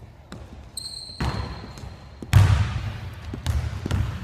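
Basketball bouncing on a hardwood gym floor, several echoing bounces with the loudest about two seconds in, after a short high sneaker squeak near the start.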